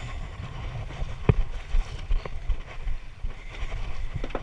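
Wind buffeting the microphone on a small boat in choppy sea, with one sharp knock about a second in and a few lighter knocks later.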